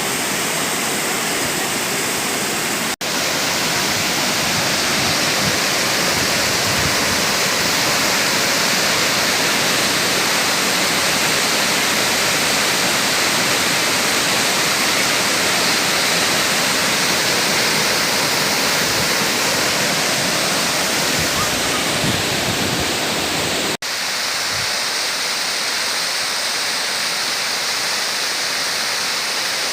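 Waterfall: a steady rush of falling water. It breaks off for an instant twice, about three seconds in and again about three-quarters of the way through.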